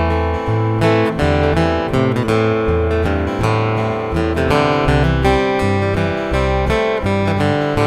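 Background music: acoustic guitar, strummed and picked, over low bass notes.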